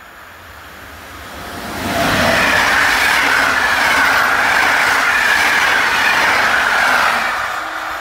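An EP07 electric locomotive and its train of passenger coaches passing at speed. The rushing, clattering train noise builds over the first two seconds, stays loud for about five seconds as the coaches go by, then begins to fade.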